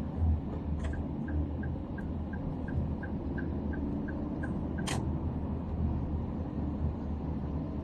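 Steady low road and engine rumble of a moving car, heard from inside the cabin. About a second in, a run of short, evenly spaced high ticks starts, about three a second for roughly four seconds, and ends in one sharp click.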